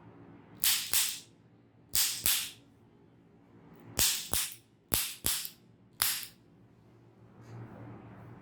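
Nine sharp, crisp smacks, mostly in quick pairs about a third of a second apart, with a last single one about six seconds in.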